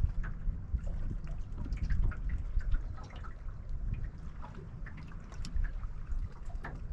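Small waves lapping against a small fishing boat's hull, many light, irregular splashes and drips, over a steady low rumble of wind on the microphone.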